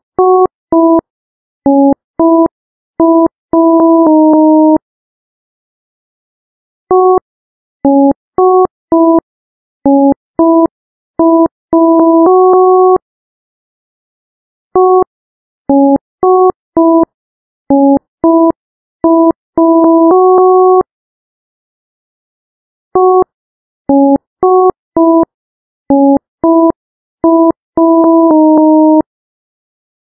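Electronic ringtone playing a simple melody of pure beeping tones, several pitches sounding at once. Each phrase of short notes ends on a longer held note, and after about two seconds of silence the phrase repeats.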